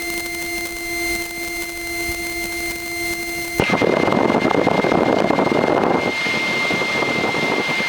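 Cabin noise of a Piper PA-28-161's engine running on the ground: a steady drone with a thin high whine. About three and a half seconds in there is a sharp click, and a louder, even rush takes over.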